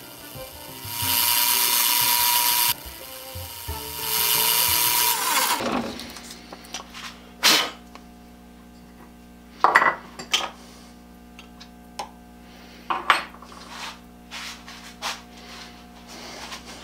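A South Bend 9C metal lathe spins a wooden handle while a drill bit fed from the tailstock bores down its centre. The cutting comes in two loud rushing bursts over the lathe's running. About five and a half seconds in the lathe's pitch falls as it winds down, followed by a low hum and a few sharp knocks and clicks.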